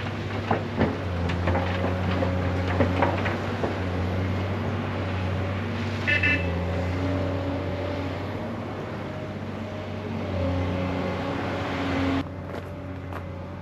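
An engine running steadily, its pitch shifting up and down, with several knocks and clanks in the first few seconds and a short high beep about six seconds in. The sound drops abruptly and becomes quieter near the end.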